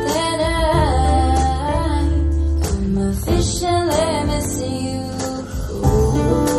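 Live ballad through a concert sound system: a woman singing into a microphone over guitar accompaniment, with a sung phrase in the first two seconds and a shorter one about four seconds in.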